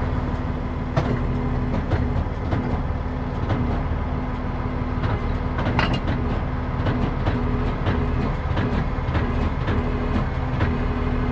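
Heavy wrecker's engine idling steadily, with scattered light metal clinks and knocks from the underlift and wheel cradles being set under a truck's front wheels.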